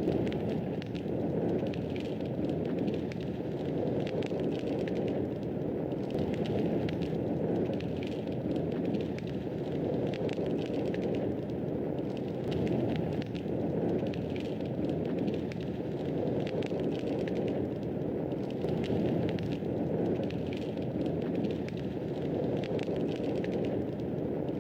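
Wood fire burning steadily in a fireplace: a continuous low rushing of flames, with many small sharp crackles and pops scattered throughout.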